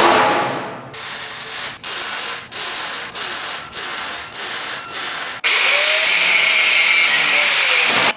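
A steel lid clanks down, then an arc welder crackles in about seven short bursts of welding on the steel smoker. Near the end an angle grinder runs steadily with a high whine.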